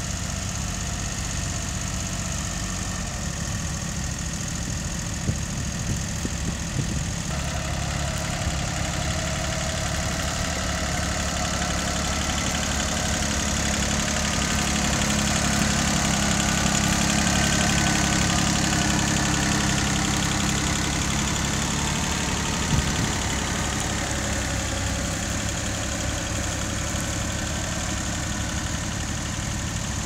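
Small compact tractor's engine running steadily under load while pulling a mounted plough through stubble. It grows louder about halfway through as the tractor passes close by, with a few faint knocks.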